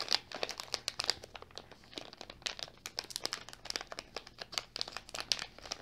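Metallized plastic pouch crinkling as it is squeezed and worked open to free a small flat battery, a dense run of irregular crackles.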